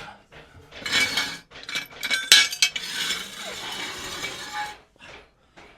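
Metallic clinking and clattering, loudest at a sharp clank a little over two seconds in, followed by about two seconds of steady rushing noise.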